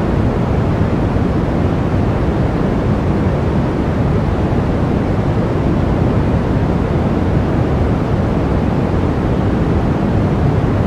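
Blizzard wind blowing steadily as a deep, dense rush, strongest in the low end, with no gusts or breaks.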